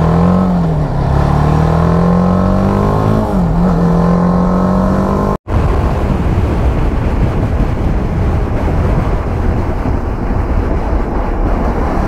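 Sport motorcycle engine accelerating, its pitch climbing and then dropping at a gear change about three seconds in, then holding steady. After an abrupt cut about five seconds in, a steady rushing noise of riding at speed covers the engine.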